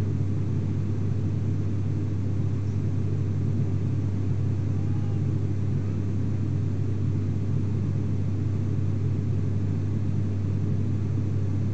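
ATR 72-600 turboprop engine and six-blade propeller heard from inside the cabin while the aircraft climbs after takeoff: a steady low propeller hum under an even rushing drone, with no change in pitch or level.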